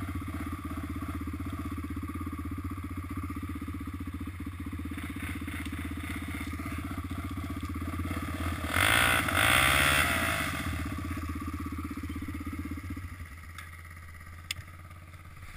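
ATV engine idling steadily, with a louder burst of quad engine revving up and back down for about two seconds in the middle. The idle drops away near the end.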